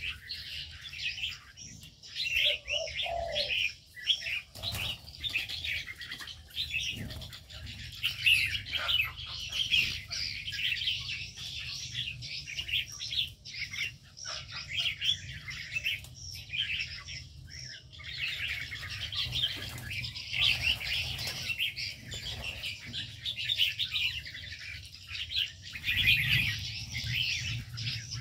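Many small aviary birds of mixed species chirping over one another in a dense, continuous chatter, with a faint low hum underneath.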